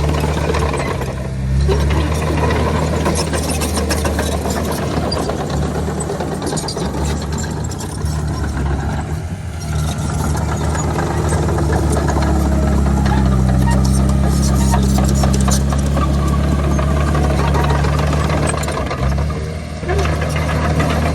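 Diesel engine of heavy earthmoving machinery running steadily under load, with clattering and rattling over it and brief dips in level three times.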